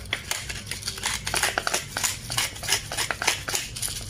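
Hand pepper mill being twisted, grinding black peppercorns: a rapid, continuous crackle of many small crunching clicks that stops near the end.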